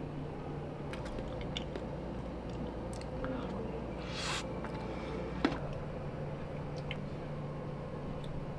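Someone eating: chewing and biting noises with small scattered clicks, over a steady low hum. A short rustling burst comes a little after four seconds in, and one sharp click, the loudest sound, about five and a half seconds in.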